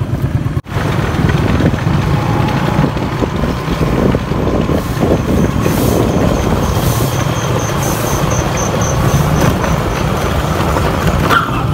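A motorbike runs along a road with a steady low engine rumble, and wind rumbles on the microphone. From about the middle, a high, evenly pulsed chirp repeats about three times a second for a few seconds.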